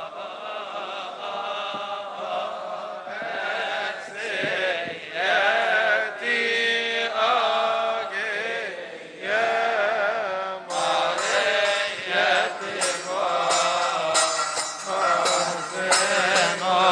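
A group of Coptic deacons chants a liturgical hymn in unison, with long melismatic held notes. About two-thirds of the way in, a steady beat of sharp strikes joins the singing.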